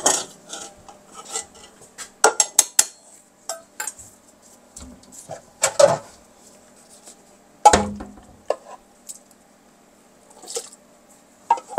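Kitchen utensils clinking and knocking against pots and dishes at irregular intervals, with a heavier knock about eight seconds in, as the soup is moved toward the food processor. The food processor's motor is not running.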